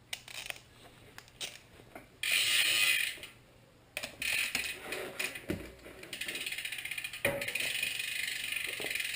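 Ratchet wrench with a 10 mm bit loosening the bicycle's crank bolt. There are a few scattered clicks, then a loud burst of ratcheting about two seconds in and irregular clicking after it. From about six seconds in come fast, even ratchet clicks as the bolt is backed out.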